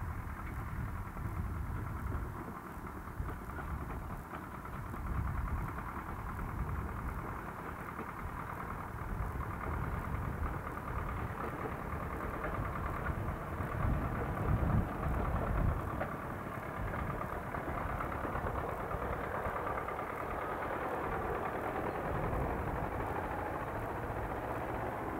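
Diesel engine of an orange farm tractor running as it tows a flatbed trailer along a dirt road. It grows louder as the tractor passes close, about halfway through.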